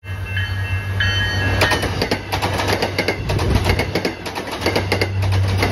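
MBTA commuter rail train passing close by, its bilevel coaches' wheels clicking rapidly over the track over a steady low hum. A few short high-pitched tones sound in the first second and a half.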